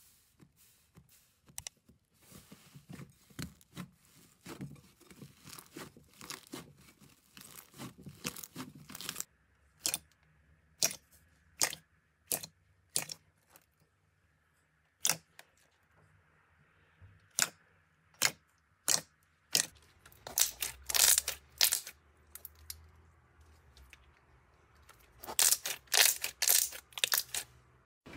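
Hands pressing and poking slime, making a run of crackling clicks and sharp pops. The pops come singly about a second apart in the middle, with dense bursts of crackling near the end.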